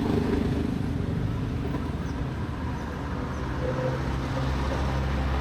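Road traffic rumble, with a vehicle engine's steady low hum coming up about halfway through.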